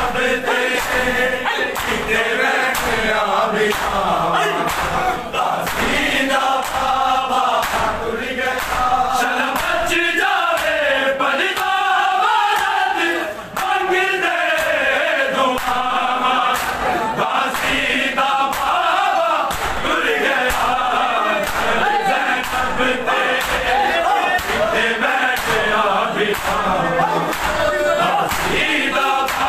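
A crowd of men chanting a noha, a Shia mourning lament, with the sharp slaps of bare-handed chest-beating (matam) keeping a steady beat about one to two times a second.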